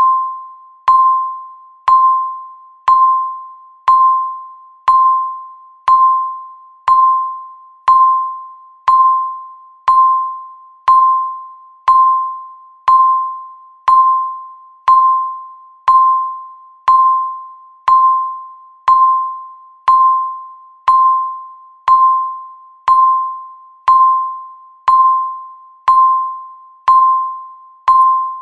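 Countdown timer's electronic beep sounding once a second, a single clear mid-pitched tone that starts sharply and fades away before the next, marking each second counted down.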